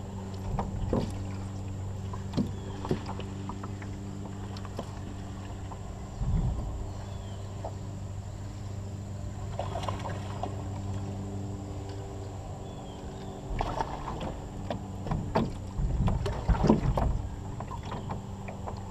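Knocks and thumps of feet and gear on an aluminum jon boat's hull, scattered at first and then busier and louder a few seconds before the end as a bass is fought and landed, over a steady low hum.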